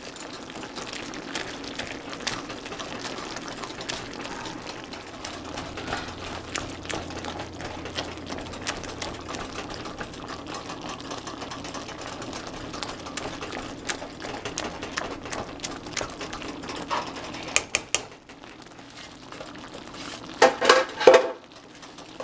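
Metal potato masher pressing and scraping over and over against the bottom of a frying pan as it mashes boiling beans and corn kernels: a fast run of clicks and scrapes with wet squelching, with a few louder clacks near the end.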